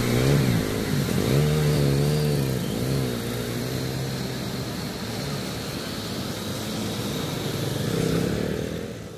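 Small engines of auto-rickshaws and a motorcycle revving up and down as they drive through a flooded road, over a steady hiss of tyres churning water. A closer engine swells about eight seconds in.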